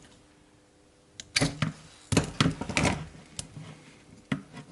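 Scattered sharp clicks and light knocks of small metal parts being handled, with a cluster between about two and three seconds in, as the striker plate and limit switch are adjusted by hand.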